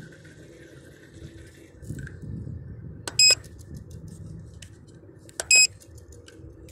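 Two short, loud electronic beeps about two seconds apart, from the Flytech bait boat's remote control as the bait hopper is tipped open, over a low steady rumble.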